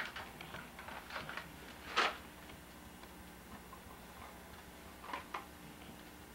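A few scattered light clicks and taps of Hanukkah candles being handled, taken from their cardboard box and pushed into the holders of a menorah. The sharpest tap comes about two seconds in, with a faint steady hum underneath.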